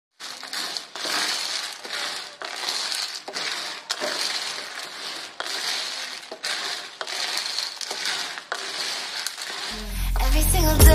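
A wooden spatula stirs and scrapes food around an aluminium wok, in repeated strokes over a wet sizzle. Music comes in near the end.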